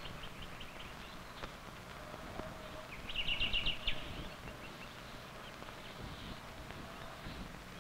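Faint open-air background with a bird calling: a quick, high trill of evenly spaced notes lasting about a second, around three seconds in, and a few scattered faint chirps.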